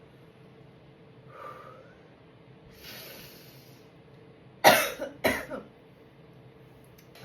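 A woman draws a sharp breath, then gives two loud, explosive coughs about half a second apart.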